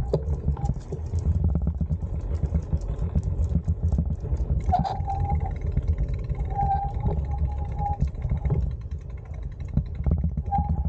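Wind buffeting the microphone and a bicycle's tyres rolling on asphalt make a loud, unsteady low rumble with light rattles and clicks. A short, thin squeak comes and goes three times.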